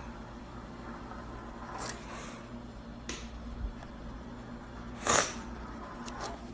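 Pastry wheel cutting a thin sheet of rolled dough into strips on a stone countertop: soft scraping and rustling over a steady low hum, with a few short sharper rustles, the loudest about five seconds in.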